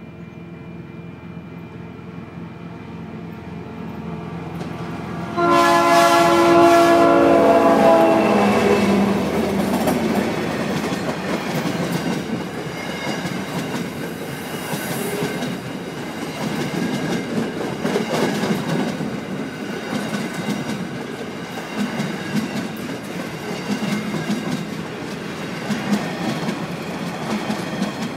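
Diesel locomotives approaching with a rising rumble, then a loud horn blast of about two and a half seconds whose pitch drops as it passes. After it, the empty ballast wagons roll by with a steady clickety-clack of wheels over rail joints.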